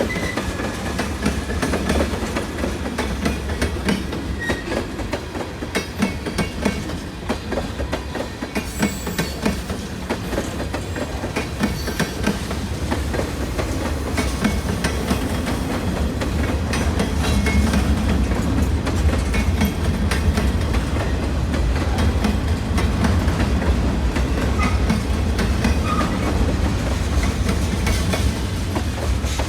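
Railroad cars rolling past at track side, their wheels clicking rhythmically over rail joints over a heavy rumble, a little louder in the second half.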